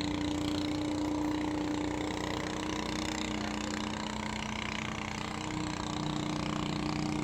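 An engine running steadily at idle, a continuous hum with a steady tone, slightly changing pitch about six seconds in.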